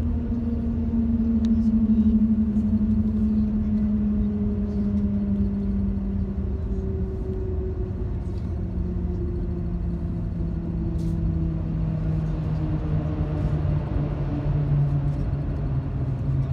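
Shanghai Transrapid maglev train heard from inside the cabin while slowing down: a steady low rumble with a whine that falls slowly and evenly in pitch as the speed drops.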